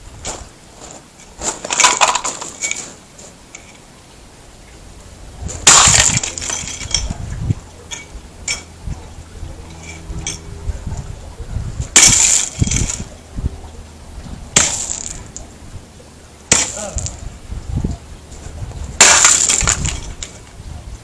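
An alarm clock being smashed with a hand tool: about six loud strikes a few seconds apart, with smaller knocks between and the clock breaking apart.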